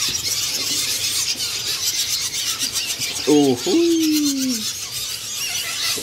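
A box of hand-fed nestling songbirds begging: a dense, shrill chorus of rapid high-pitched cheeps. A short lower call with falling pitch a little past three seconds in.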